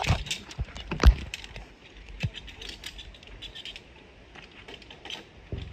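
Scattered clicks, knocks and light metallic clinks, as of gear being handled, with two sharper knocks in the first second or so.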